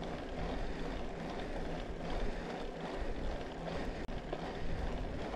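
Mountain bike riding over a dry dirt trail, heard through an action camera's microphone: steady wind buffeting with tyre and frame rattle noise, broken by a sharp click and brief drop about four seconds in.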